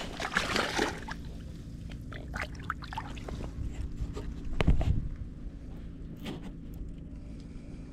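A spotted seatrout being let go by hand in shallow water: a splash in the first second, followed by scattered small clicks and a low thump about five seconds in.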